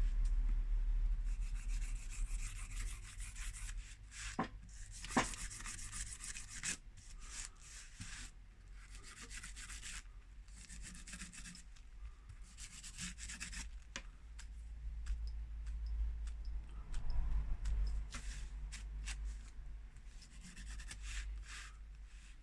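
A cloth dampened with alcohol rubbing and scrubbing around the edge of a phone's frame to clean off old screen adhesive, in irregular strokes with a few small clicks.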